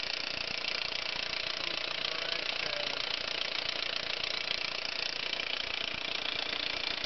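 A 2003 VW Passat 1.8T four-cylinder turbo engine idling cold with a loud, steady high-pitched clatter, heard just after a cam chain tensioner replacement. The owner suspects the cam chain.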